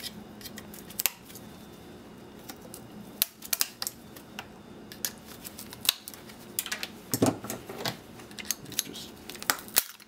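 Wire cutters snipping through the leads of a small transformer to free it from a circuit board: scattered sharp clicks and snips, bunched together about three seconds in and again near the end, with a heavier knock about seven seconds in as parts are handled.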